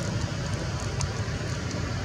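Steady low rumble of background noise, with a few faint high ticks about a second in.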